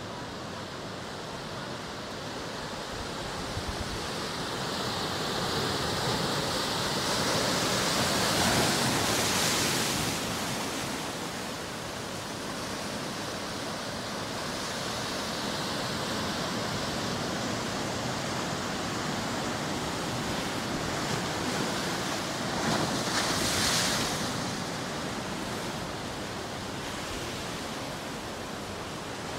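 Ocean waves breaking and washing in, a steady rushing hiss that swells to a loud crash twice: about a third of the way in and again near the end.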